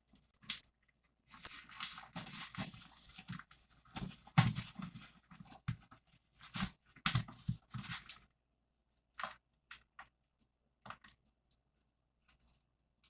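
A hand squeezing and kneading stiff protein cookie dough in a bowl: irregular squishing and pressing sounds, stopping about two-thirds of the way through. A few scattered light taps follow.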